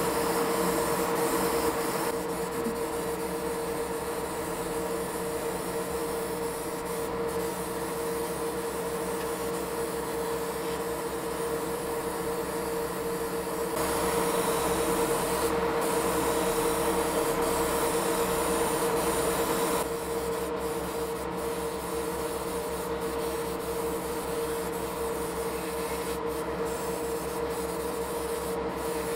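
Airbrush hissing as it sprays paint onto a plastic model car body, over the steady hum of a small motor. The hiss is louder at the very start and again for about six seconds in the middle.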